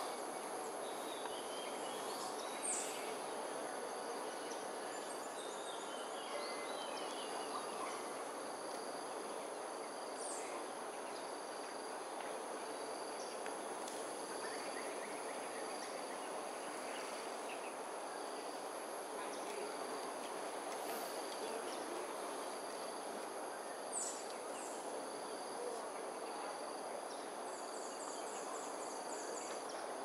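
Steady outdoor ambience: an insect chorus holding several high, steady tones over a low, even background hum. A few brief high bird calls cut in: thin single notes about 3, 10 and 24 seconds in, and quick trills of short notes around 6 seconds and again near the end.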